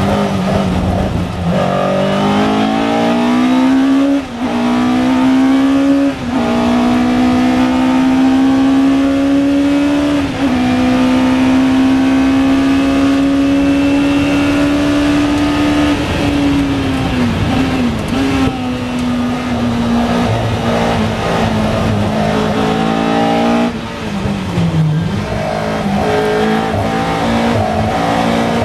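Lola T292 sports racing car's engine heard onboard, pulling hard up through the gears with upshifts about four, six and ten seconds in, then held at high revs flat out. It then comes down through the gears with throttle blips around seventeen seconds in and again near twenty-five seconds, before accelerating once more.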